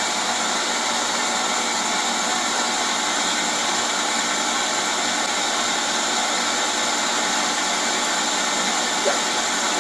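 Bridgeport-clone milling machine running, a steady even whir that does not change.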